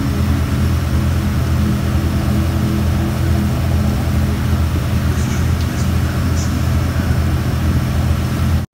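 A tour boat's engine running steadily, a deep hum of steady low tones, with the rush of water along the hull. It cuts off abruptly at the very end.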